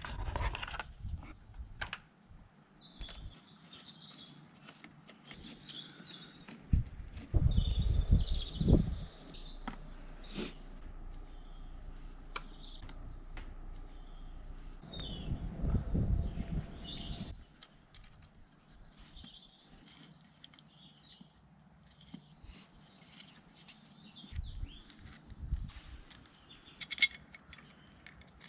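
Small birds chirping in the background, with scattered clicks and rustles from hands handling motorcycle parts. A few stretches of low rumbling come and go.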